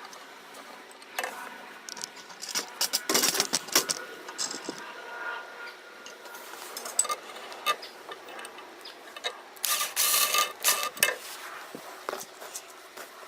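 Hand work on metal parts: clinks, taps and rattles of nuts, bolts and a threaded rod being handled and turned with a spanner. There are louder clattering bursts about three seconds in and again around ten seconds.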